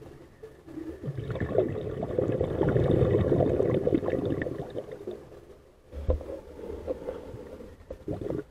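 Scuba diver's exhaled air bubbling out of a regulator underwater: one long exhale of about four seconds, then a shorter, weaker bubbling near the end.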